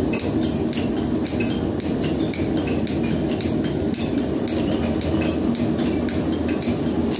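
Belt-driven Federal metal planer running, its table traversing under a roughing tool taking a cut in flame-cut steel plate: a steady mechanical running noise with an even, fast ticking of about four or five clicks a second.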